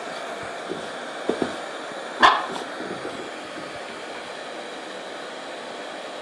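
A cockapoo barks once, sharply, about two seconds in, after a couple of soft woofs, over the steady whoosh of a running hair dryer.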